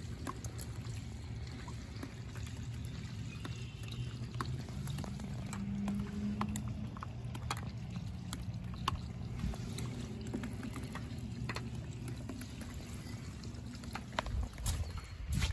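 Storm runoff water pouring and trickling steadily in pooled floodwater, with scattered small drips and splashes. A louder low rumble comes in near the end.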